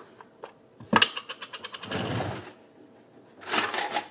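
Objects handled on a tabletop close to the microphone: a sharp knock about a second in, then scraping and rattling as a jar of mayonnaise is picked up and handled.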